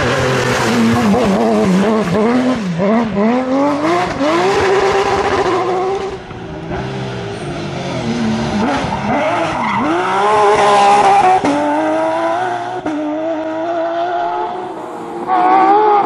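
Porsche 911 rally cars' flat-six engines at full throttle, one car after another, revving hard with the pitch climbing and dropping again and again through gear changes and lifts.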